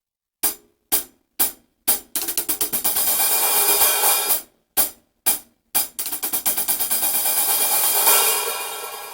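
Hand-hammered, lathed cymbals being struck with a stick: four short separate hits, then a fast run of strokes that builds into a wash. Three more short hits follow, then another fast run that swells and slowly dies away.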